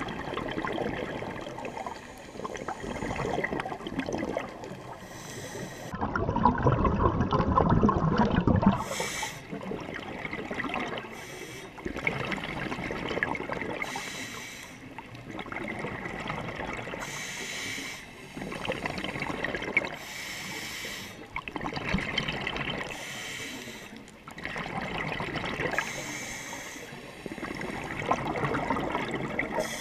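Scuba diver breathing underwater through a regulator: hissing and bubbling that repeats about every three seconds, loudest about six to eight seconds in.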